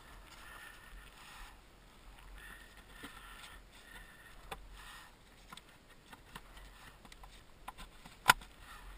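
Gloved hands working in a Yamaha RX-1 snowmobile's engine bay: scattered small clicks and rustling, with one sharp knock near the end.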